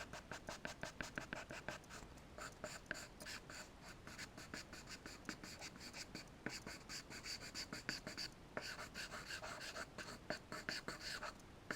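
Charcoal scratching across paper in quick, repeated strokes, about four or five a second, with a brief pause about two-thirds of the way in.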